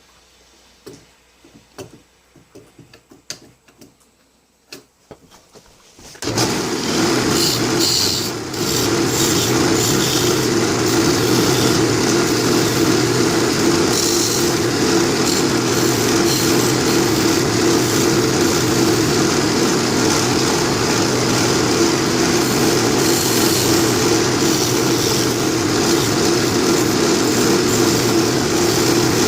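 A few faint clicks and knocks, then about six seconds in a wood lathe is switched on and runs steadily, turning a small cherry blank for a pipe tenon and bowl.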